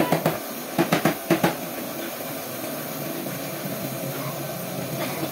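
A few drum beats from background music end about a second and a half in, then a steady hiss from a gravity-feed compressed-air paint spray gun spraying paint.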